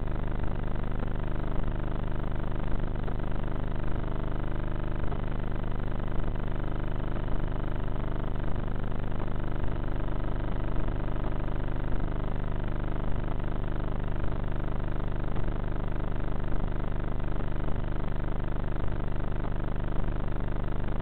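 Steady drone of a Bixler foam RC plane's electric pusher motor and propeller in flight, with small regular ticks.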